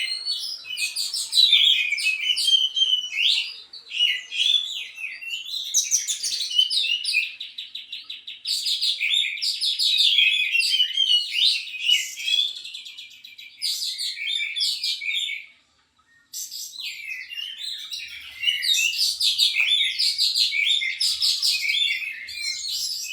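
Oriental magpie-robin singing a long, rapid, varied song of chirps, whistles and trills, with a brief silent break about sixteen seconds in.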